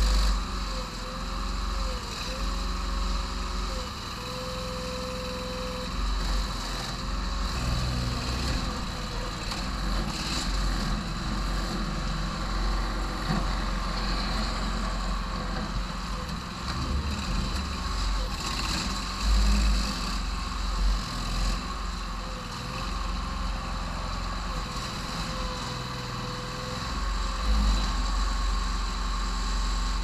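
Homemade backhoe excavator's small engine running steadily while its hydraulics work the boom and bucket, with a pitched whine that wavers in the first few seconds and again near the end. The machine is being run with low oil in its tank.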